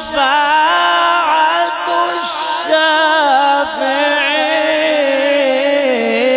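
A man reciting the Quran in melodic tajweed style, drawing out long held notes whose pitch wavers in ornaments. About two seconds in there is a short "sh" hiss from the recited words.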